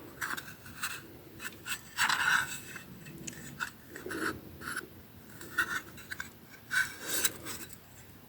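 Irregular rustling, rubbing and scraping of items and packaging being handled, in short uneven strokes, loudest about two seconds in and again near seven seconds.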